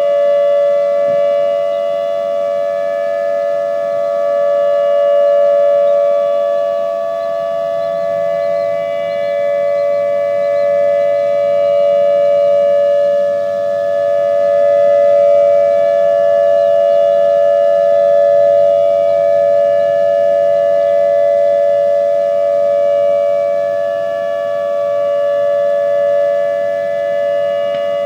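Hörmann ECN1800 electronic outdoor warning siren sounding its steady alert signal: two close, unwavering tones held together, the loudness swelling and dipping slowly.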